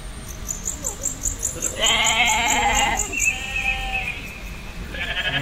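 Sheep bleating: a long, wavering bleat about two seconds in, a fainter, higher one right after it, and another bleat starting near the end.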